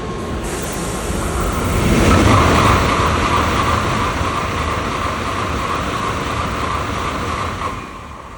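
Shinkansen bullet train passing at speed: a loud rush of noise that builds over about two seconds and holds with a steady high whine on top, then drops away near the end.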